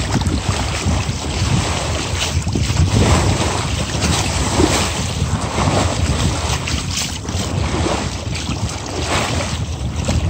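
Water rushing and splashing along the hull of a Nordica 20 sailboat under way, in waves that swell every second or two, with wind buffeting the microphone.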